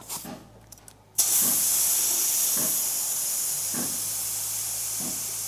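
Air hissing hard at a motorbike tyre, starting suddenly about a second in and slowly fading, as the tyre is deflated or re-pumped to reseat a bulging bead. Faint knocks come about once a second under it.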